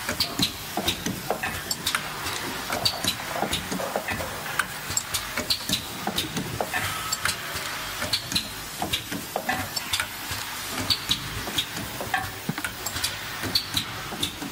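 Automatic oil seal spring loading machine running: frequent light clicks and clacks at irregular intervals over a steady hiss.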